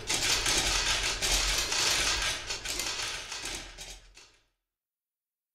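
Many camera shutters firing rapidly and overlapping in a dense clicking clatter, dying away about four seconds in.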